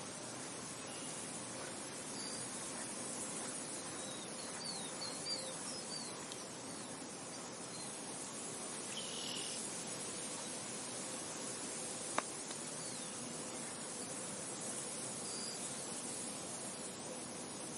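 Wheat field ambience: a steady hiss with insects, a few brief bird chirps around five seconds in and again near nine seconds, and a single sharp click about twelve seconds in.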